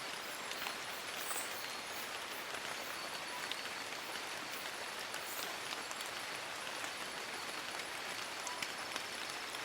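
Steady rain falling on forest leaves: an even hiss with many single drops ticking through it.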